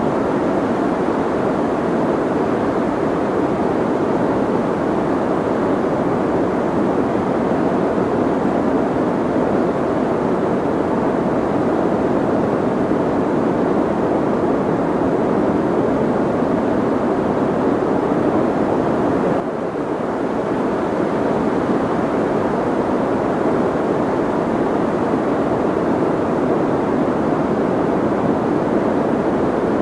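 Soft white noise, a steady muffled hiss with most of its weight in the low and middle range and little treble. There is a brief dip in level about two-thirds of the way through.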